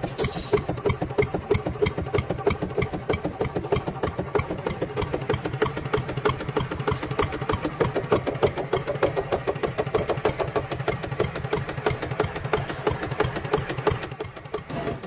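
Engine sound of an RC model tractor: a steady, even chugging of about five pulses a second over a low hum, easing briefly near the end.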